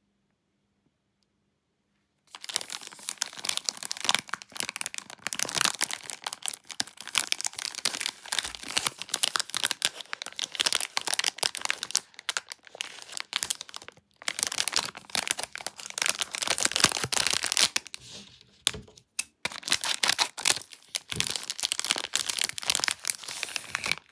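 Plastic wrapper of a Kinder Delice bar crinkling and tearing as it is unwrapped by hand, starting about two seconds in, with a couple of brief pauses.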